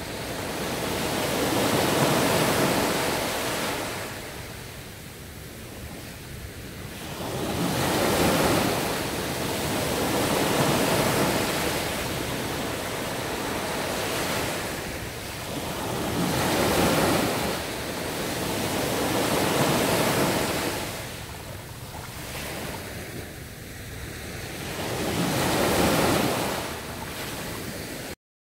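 Ocean surf washing onto a shore, swelling and fading as each wave breaks every few seconds; it cuts off abruptly near the end.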